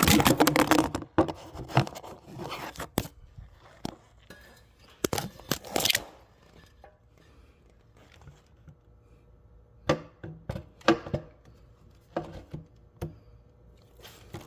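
Mobility scooter rear wheel section being fitted to the chassis, its hooks being worked onto the bar: clunks, knocks and scraping of the parts. A dense burst of knocking and rattling comes right at the start, then single knocks and scrapes around five to six seconds in and again between about ten and thirteen seconds.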